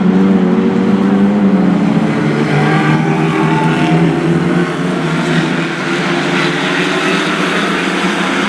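Lightning Rod stock cars racing, several engines running together at speed, their notes overlapping and shifting in pitch as they rise and fall.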